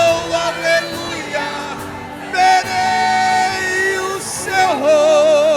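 Live gospel worship song: a singer holds long notes, with vibrato on the last one, over steady keyboard-style accompaniment.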